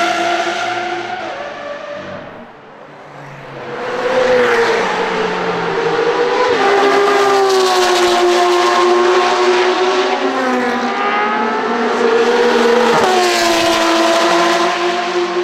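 A straight-piped Porsche 992 GT3 RS on a Soul exhaust, its 4.0-litre flat-six at high revs, growing loud from about four seconds in as it accelerates past. Its pitch steps down twice, about six and a half and thirteen seconds in, like upshifts. Before it arrives, a Lamborghini Aventador SVJ's engine shifts up and fades away in the first two seconds.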